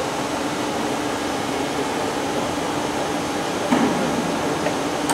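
Steady machinery hum and air noise of an industrial hall, with one short knock a little before the end.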